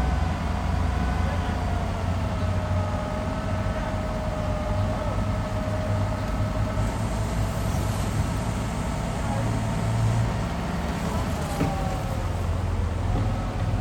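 Heavy diesel earthmoving machinery running steadily: a deep engine rumble with a steady whine above it that drops slightly in pitch over the first few seconds.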